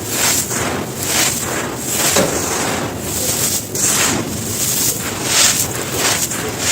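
Soft, dry stone being crushed and crumbling in a steady run of crunches, about two a second.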